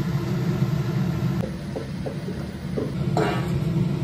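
Steady low rumbling hum of a gas stove burner under an aluminium pot of boiling water, with a few soft knocks around the middle and a brief pitched sound near the end.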